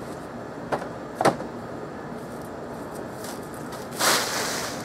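Two sharp knocks about a second in, then a short scraping rustle near the end, over steady outdoor background noise.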